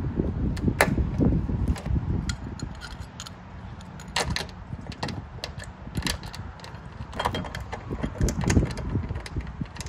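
Scattered metal clicks and rattles as a hand rivnut tool is worked off a freshly set rivnut and the hardware is handled, over a low rumble.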